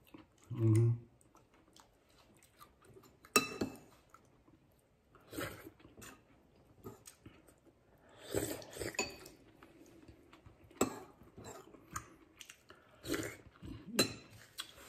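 A person eating arroz caldo (chicken rice porridge) with a metal spoon from a ceramic bowl: chewing, with a few sharp clinks of the spoon against the bowl.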